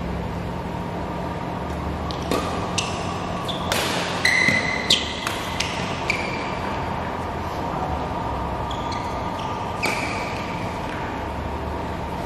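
Badminton rackets striking a shuttlecock in a doubles rally: a quick run of sharp, pinging hits, thickest in the first half and a few more near the end, ringing in a large hall over a steady background hum.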